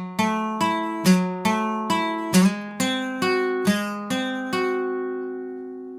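Background music: acoustic guitar strumming chords about twice a second, each chord dying away. Past the middle, the last chord is left ringing for over a second.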